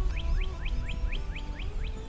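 Background music with held notes, and over it a bird repeating a quick rising chirp about four times a second, stopping near the end.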